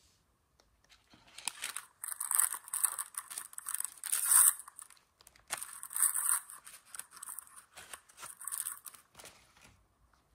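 Plastic blind-bag toy packet being torn open and crinkled by hand, in two long stretches of crackling with a short pause about halfway through.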